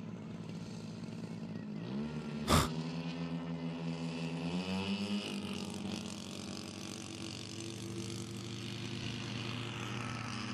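Twin piston engines of a large radio-controlled DC-3 model running up to take-off power, the pitch rising over a few seconds and then holding steady, with one sharp click about two and a half seconds in.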